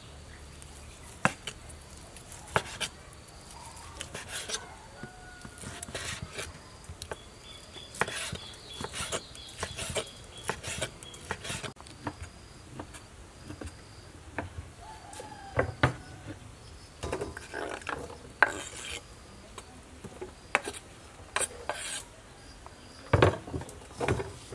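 Kitchen knife cutting cooked offal on a wooden cutting board: irregular knocks of the blade against the board, with a couple of heavier thuds near the end.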